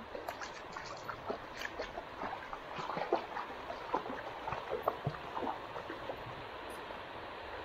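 Running stream water with many small, irregular splashes and knocks, the water being disturbed as it is waded. The splashes thin out near the end.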